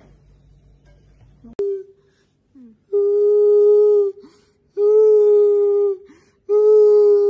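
A young man's voice wailing in long, level, high-pitched notes, each held about a second and repeated three times after a click about one and a half seconds in.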